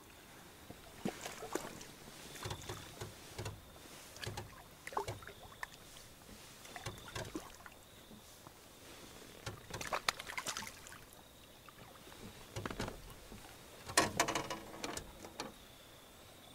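Water splashing and knocking at a small boat in short irregular clusters every second or two, loudest near the end.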